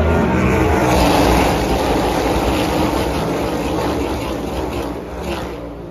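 A pack of NASCAR Cup Series stock cars passing, their V8 engines loudest about a second in and then fading steadily away.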